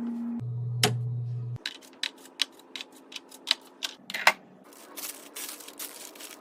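Food containers and packages being handled and set down: a string of sharp clicks and knocks, then a busier run of clatter and rustling from about five seconds in. A low steady hum lies under the first second and a half.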